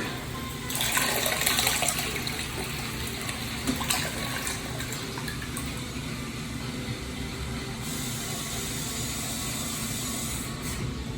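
TOTO low-tank toilet flushing: a loud rush of water about a second in, settling into a steady run of water as the tank refills.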